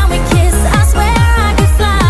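Electronic dance music with a steady four-to-the-floor kick drum, about four beats a second, and synth melody lines above.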